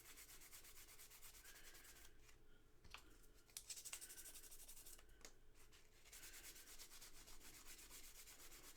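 Faint, quick rubbing strokes in several spells with short pauses: a metal part of a WW2 jeep's headlight switch being scrubbed clean.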